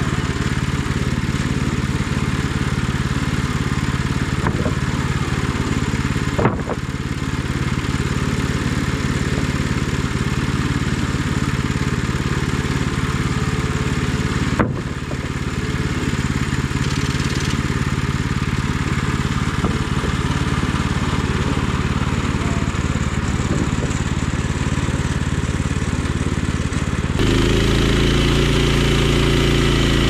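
Petrol engine of a portable bandsaw sawmill running steadily as the band blade cuts through a log. Two brief sharp clicks come about 6 and 15 seconds in, and the engine sound shifts in tone near the end.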